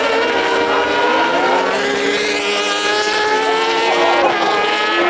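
Supersport racing motorcycle engines at high revs, their pitch slowly climbing as the bikes accelerate away.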